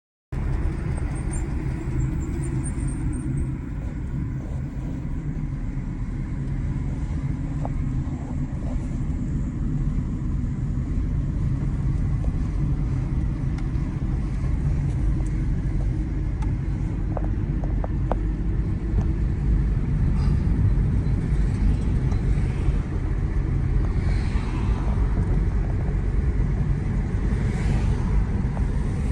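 Car driving: a steady, low rumble of engine and road noise that grows slightly louder over the stretch.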